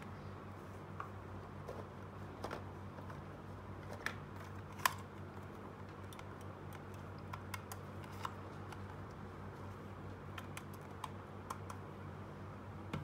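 Scattered light clicks and taps of plastic toys being handled, a doll and a toy hair dryer, the sharpest about five seconds in, over a steady low electrical hum.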